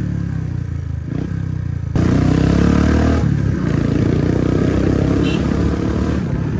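Motorcycle engine running while being ridden, with rumble and road hiss. It gets louder about two seconds in.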